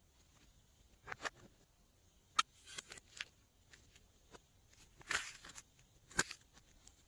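Glossy slime being handled and mixed by hand, giving scattered sticky pops and clicks, about six of them, with a longer squishy burst a little past halfway.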